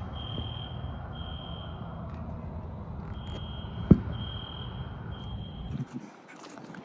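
Building fire alarm sounding its temporal-three evacuation pattern: groups of three high beeps about a second apart, with a pause between groups. A low rumble runs underneath and fades near the end, and there is one sharp thump about four seconds in.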